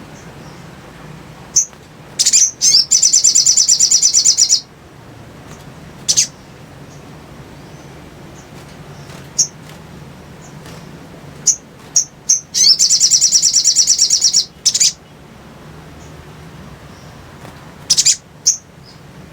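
Little spiderhunter (sogok ontong) calling: scattered sharp, high chips and two long, very rapid chattering trills of about two seconds each, the first a few seconds in and the second past the middle, over a faint steady low hum.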